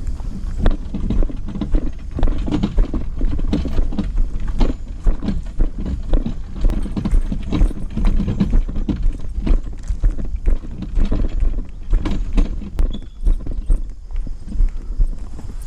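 Footsteps with irregular knocking and clattering of fishing gear being carried, a quick uneven run of knocks throughout over a steady low rumble.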